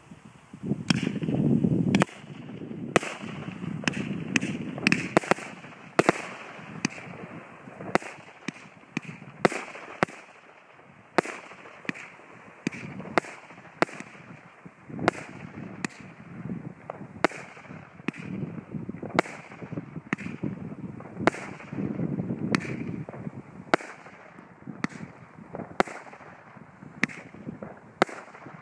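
Flaming Phoenix firework cake from Cosmic Fireworks' NG range firing a continuous barrage of shots, sharp bangs coming somewhat more than once a second without a break, with hissing between them.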